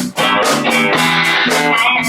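Band playing amplified music: guitar notes over a steady beat of quick, even high-pitched hits, with a brief break at the very start before the playing comes back in.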